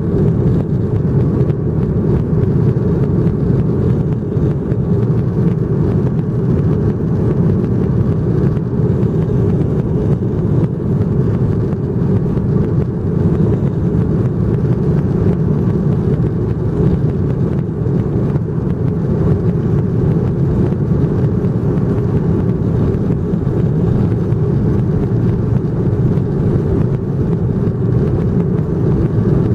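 Airplane taking off: its engines and airflow make a loud, steady low rumble that holds without rising or falling in pitch.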